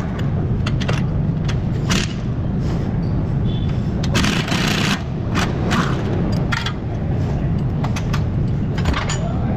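Metal clicks and knocks of a wrench working on the front strut's lower mounting bolts, over a steady low workshop hum. About four seconds in there is a short burst of noise.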